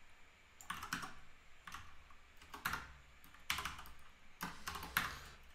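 Computer keyboard being typed on in short, irregular bursts of keystrokes, starting about half a second in.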